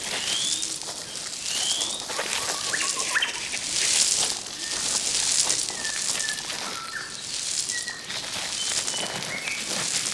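Birds chirping in short rising and level notes over a high hiss that swells and fades every second or two, with scattered light clicks.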